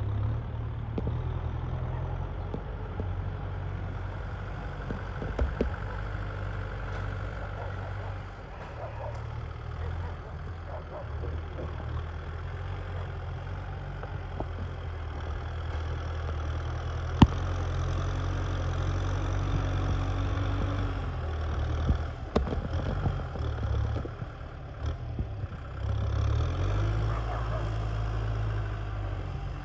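Kubota M6040SU tractor's diesel engine running steadily under load, as when pulling a rotary tiller through a paddy, with a few sharp clicks, the loudest about halfway through.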